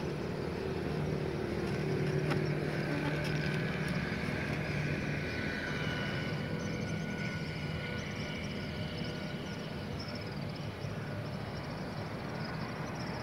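Road traffic passing steadily, a mix of vehicle engines and tyre noise, a little louder in the first few seconds.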